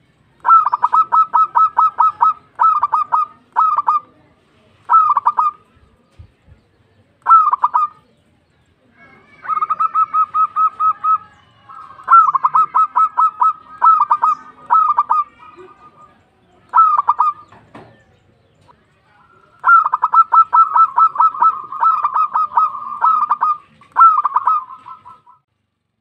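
Zebra dove (perkutut) calling: phrases of rapid staccato cooing notes, some short and some long, separated by brief pauses, with several downward-slurred notes in each phrase.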